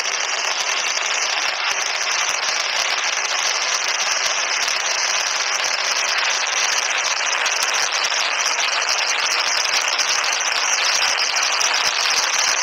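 A dense, unbroken barrage of firecrackers going off together in a fireworks display, a steady crackle with no single blast standing out. Thin-sounding, with very little bass.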